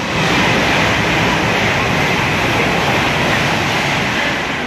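An electric passenger train passing through the station on the tracks beside the platform. Its wheels and air rush make a loud, steady noise that eases off near the end.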